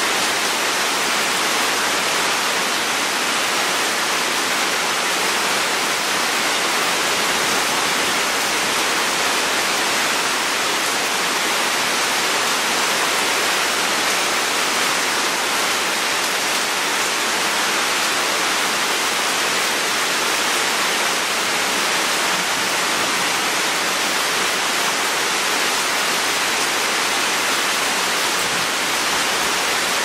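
Steady tropical rain falling, an even, unbroken hiss with no let-up and no single drops standing out.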